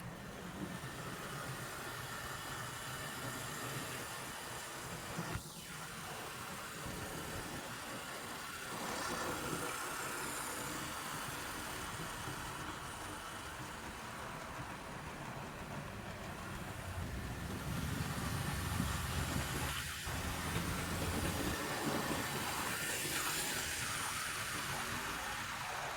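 Hornby OO-scale model locomotive running with its carriages along the layout track: a steady motor whir and wheel rumble that swells and fades a little as the train passes, with a few light clicks.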